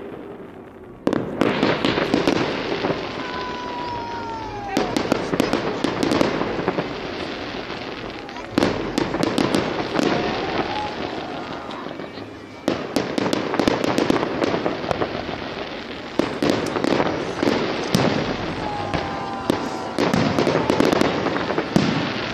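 Aerial fireworks display: shells bursting in volleys, with a sudden louder volley about a second in and fresh ones every few seconds, full of sharp crackling and a few falling whistles.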